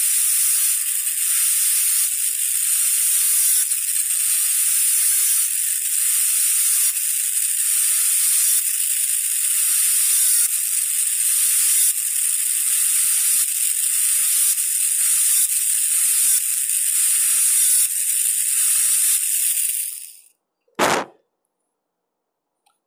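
High-speed air-turbine dental handpiece running with water spray, a steady high-pitched whine and hiss, as its bur cuts through the distal contact of a typodont premolar. It stops about twenty seconds in, followed by a single short knock.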